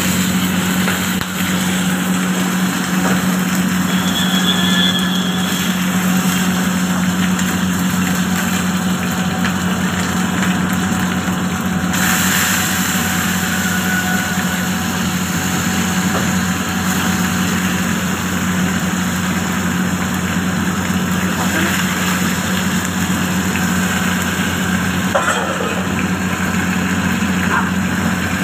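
Steady, loud mechanical hum with a hiss on top while food fries in hot oil in a pan; the hiss grows brighter about twelve seconds in.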